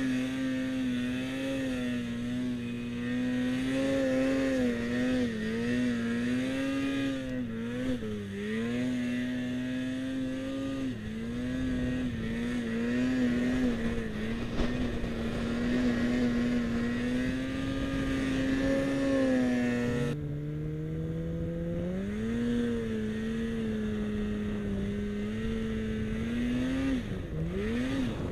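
Two-stroke snowmobile engine held at high revs while the sled ploughs through deep powder, its pitch wavering with the throttle, dipping briefly several times and once more with a quick drop and rise near the end.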